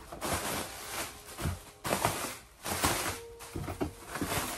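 Plastic packaging crinkling and cardboard box rustling as a parcel is unpacked, in several short spells.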